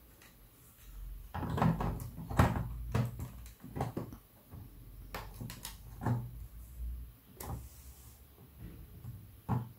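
Plastic clicks and knocks as a Lego roof section is set onto the model and pressed down so its bricks snap into place, in an irregular run over several seconds, with one more sharp click near the end.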